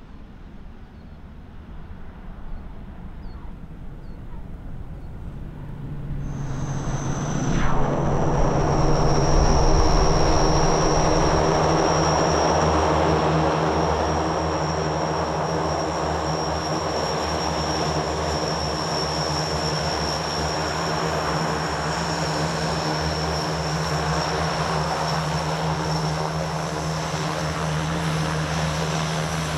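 Antonov An-26's twin Ivchenko AI-24VT turboprop engines running as it taxis: a steady high turbine whine over a low propeller drone. It is quieter at first and becomes loud and close from about six seconds in.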